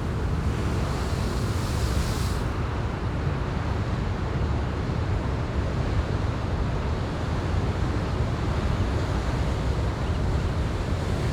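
Ocean surf with wind rumbling on the microphone, a steady wash of noise. The higher hiss of water rushing brightens for about two seconds near the start.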